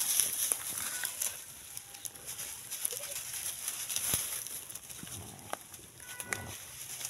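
Dogs nosing and pawing in dry grass: scattered rustles and crackles, with a few short, faint animal calls in the background.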